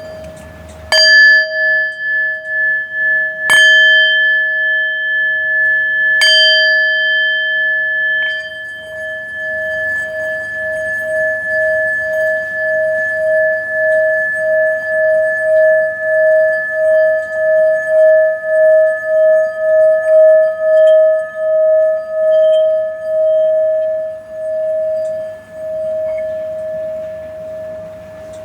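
A singing bowl is struck four times in the first eight seconds, then its ringing is held for the rest of the time with a slow, steady pulsing wobble. The ringing stops near the end.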